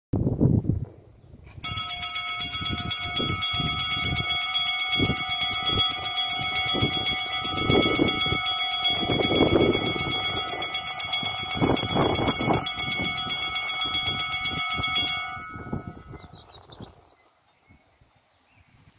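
Two Dutch level-crossing bells ringing fast and continuously as the barriers come down, starting about two seconds in and cutting off suddenly about fifteen seconds in.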